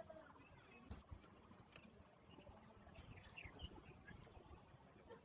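Faint, steady, high-pitched insect trill, with a single thump about a second in.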